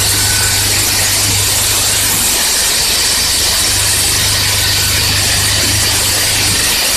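Automatic screw-and-end-cap assembly machine running, with a steady high hiss over a low hum. The hum stops for about a second and a half near the middle and cuts out again near the end.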